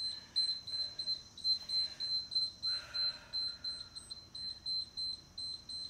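Electronic alarm beeping rapidly, a short high-pitched beep repeated evenly about four times a second.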